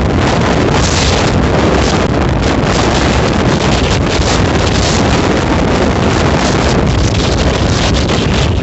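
Strong storm wind buffeting the microphone: loud, steady rushing noise that swells and eases irregularly with the gusts.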